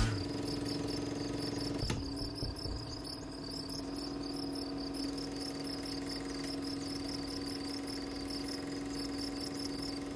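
Crickets chirping in a fast, even pulse of high chirps over a steady low hum, with a single click about two seconds in.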